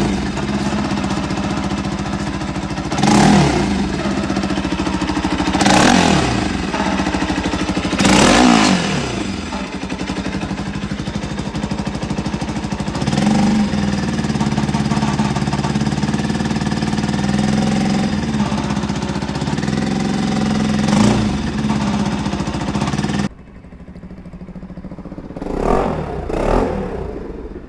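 Bajaj Pulsar NS200's single-cylinder engine idling, blipped several times in quick rise-and-fall revs. About 23 seconds in the level drops sharply, then two more quick revs follow.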